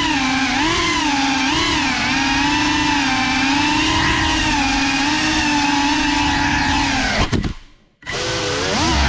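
Small FPV quadcopter's motors and propellers whining, the pitch wavering up and down with the throttle. About seven seconds in the motors cut out almost to silence for a moment, then spin up again with the pitch gliding.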